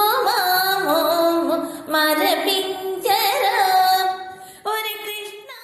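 A female voice singing a Telugu devotional song to Krishna in a Carnatic-style melody, with long held, ornamented notes; the singing drops briefly near the end and then fades out.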